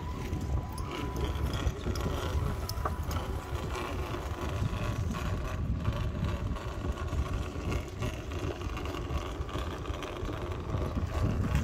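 Radio-controlled Traxxas TRX-4 scale crawler's electric motor and geartrain whirring as it crawls slowly over rocks, under a steady low rumble of wind on the microphone.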